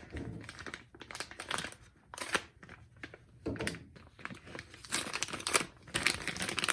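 Packaging crinkling and tearing in irregular bursts as a screwdriver is unwrapped, with a few small clicks and knocks.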